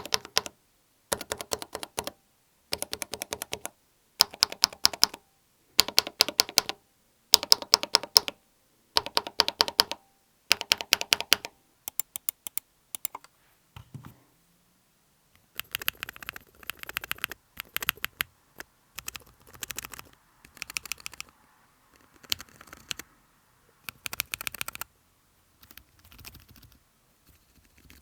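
Keycapped Akko mechanical keyboard switches in a switch tester, pressed in quick runs of clicks about every second and a half, one switch after another. After a pause of about three seconds near the middle, the clicks resume quieter, with a desk pad under the tester.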